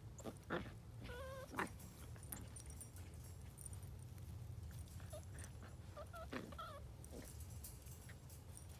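Terrier puppies whimpering: a few short, high, wavering whines about a second in, and more around five to six and a half seconds in, over a faint steady low hum.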